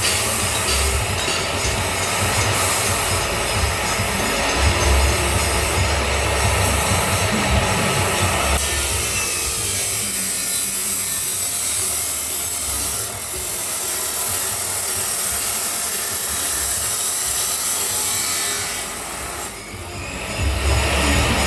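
Angle grinder cutting through stainless steel pipe: a steady, loud, high-pitched grinding that changes character about eight seconds in and eases off briefly near the end before going on.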